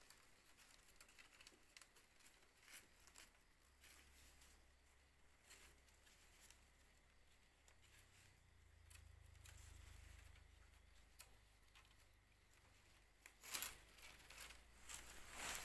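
Stiff plant strips clicking and rustling faintly as gloved hands bend and weave them into a pot trivet, with a louder burst of crackling near the end.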